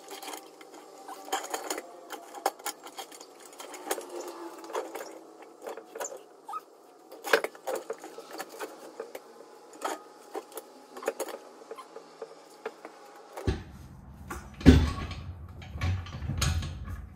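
Steel trailer axle being slid by hand under a camper on a floor jack: a run of irregular light metal clicks, clinks and scrapes, with heavier clunks near the end.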